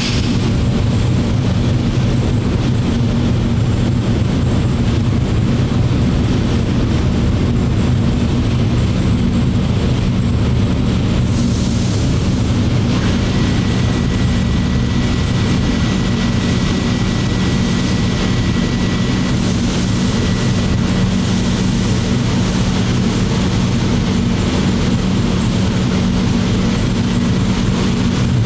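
Twin-turbo methanol-fueled SML racing engine running steadily on an engine dyno, holding an even speed with a loud, constant drone.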